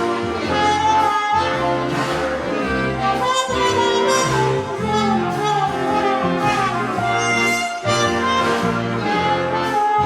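Old-time big-band jazz music, brass and saxophones playing a melody over a steady beat.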